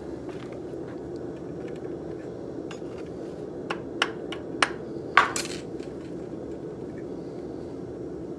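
Hand hammer striking hot steel wire on a rebar jig clamped in a vise: a few light clicks, then four sharp metallic strikes over about a second and a half, the last the loudest with a brief ring. A steady rushing noise runs underneath.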